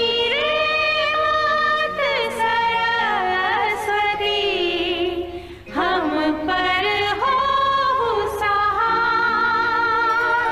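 Devotional Hindi song of the Ramayan story sung in high voices, with long, ornamented notes that waver in vibrato, over instrumental accompaniment. The singing breaks off briefly about five and a half seconds in, then resumes.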